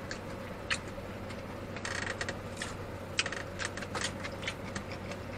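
A person chewing a burger close to the microphone: scattered small wet mouth clicks and smacks, coming thicker about two seconds in and again a second later, over a steady low hum.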